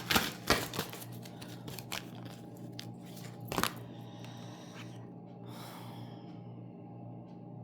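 Deck of oracle cards being handled: a run of sharp snaps and rustles in the first few seconds, then a brief whoosh about five and a half seconds in, over a steady low hum.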